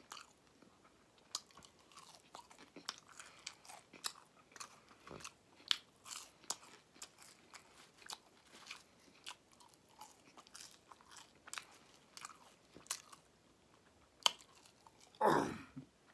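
Close-miked chewing and crunching of crispy fried fish and crinkle-cut fries, many small sharp crunches scattered throughout. Near the end comes one brief, louder mouth sound.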